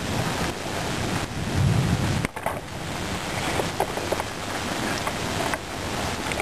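Steady heavy rain during a thunderstorm, with wind noise on the microphone. A low rumble swells in the first two seconds, then the rain carries on with scattered sharp drips.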